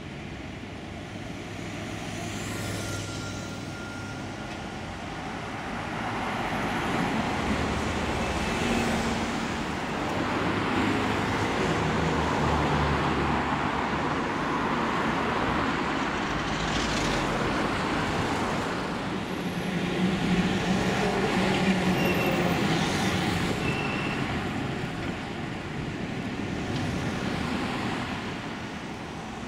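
Busy city road traffic: cars, vans, taxis and double-decker buses passing, their engine and tyre noise swelling and fading as each goes by.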